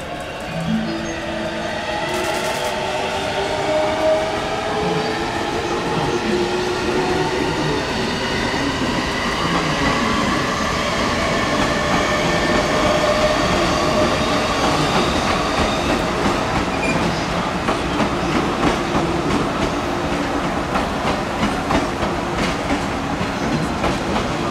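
JNR 583 series sleeper electric train rolling slowly past on the yard tracks, a steady rumble with drawn-out whining tones that glide at first and then hold. The wheels click over the rail joints, more plainly in the second half.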